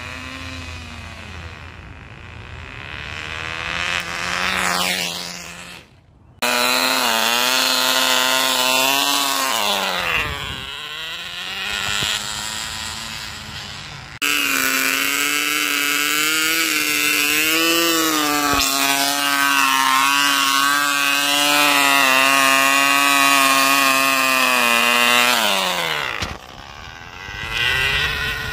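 Cox .049 model glow engine on a tether drag car running at full speed with a high-pitched whine, heard in several abruptly cut takes. The pitch falls sharply as the engine winds down about ten seconds in and again near the end.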